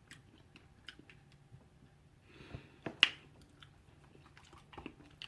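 A person chewing food close to the microphone: faint, scattered wet mouth clicks, a soft breath-like rush, and one sharper click about three seconds in.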